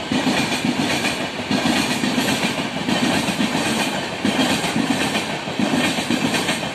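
Air-conditioned Indian Railways express coaches passing at speed close by: a steady loud rolling rumble with a rhythmic clickety-clack of wheels over rail joints.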